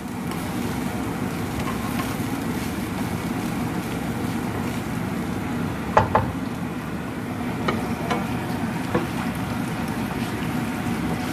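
Soya granules frying in a little oil in a pan, a steady low sizzle as they are stirred with a wooden spoon, with a few sharp knocks of the spoon against the pan past the middle.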